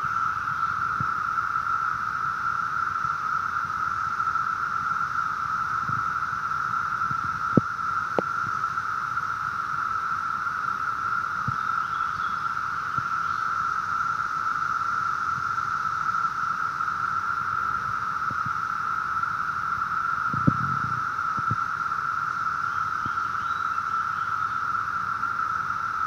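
A dense chorus of Brood II periodical cicadas: one steady, unbroken drone. A few light knocks come through about 8 seconds in and again about 20 seconds in.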